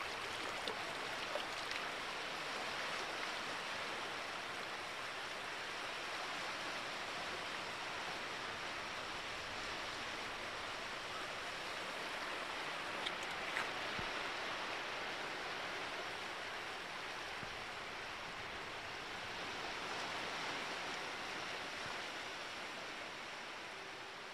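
Storm ambience of steady rain and rough sea, an even hiss that fades slowly near the end.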